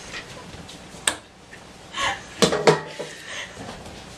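Kitchen clatter: a metal mixing bowl and utensils being handled on a countertop, with a sharp click about a second in and two louder clanks about two and a half seconds in.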